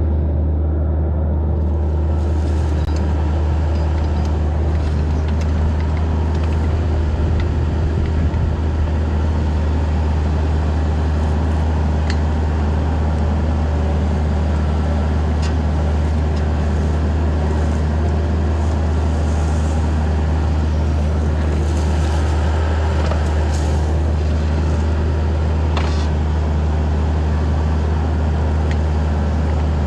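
Bobcat E26 mini excavator's diesel engine running steadily under work, a constant low hum, with a few faint sharp clicks.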